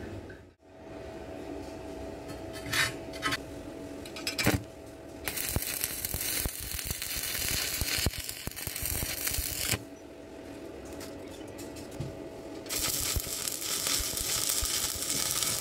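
Stick electrode arc welding: the arc crackles and sizzles steadily in two runs of about four to five seconds each, the first starting about five seconds in, as a rebar leg is welded onto the steel stove body. A couple of short metal knocks come before the first run.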